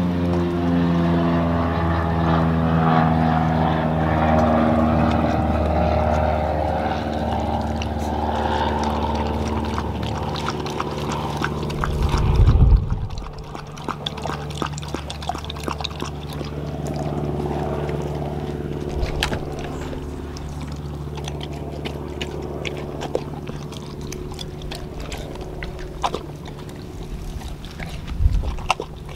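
A dog eating wet ground raw meat from a stainless steel bowl, with many small wet chewing and lapping clicks. Behind it runs a steady engine drone whose pitch wavers in the first half, and there are two low thumps, about halfway through and near the end.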